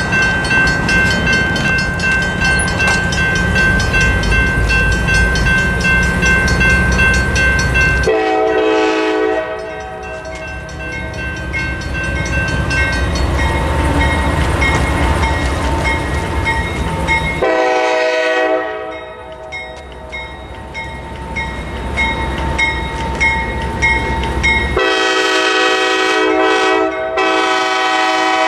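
Railroad crossing bells ringing steadily, a mechanical bell and an electronic bell together, over a diesel locomotive's low rumble. A CSX GE AC44CW freight locomotive's air horn sounds three long blasts, about 8, 17 and 25 seconds in, the last broken briefly near the end as the locomotive reaches the crossing.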